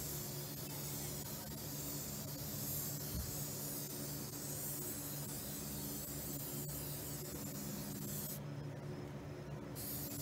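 Hissing of Mothers Back to Black trim cleaner being sprayed and worked by hand onto the plastic underside of a car hood. The hiss stops briefly about eight seconds in, then starts again, with a steady low hum underneath.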